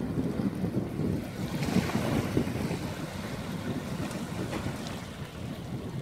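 Wind buffeting the microphone over small waves lapping and washing among rocks in shallow water, with a louder wash of water about two seconds in.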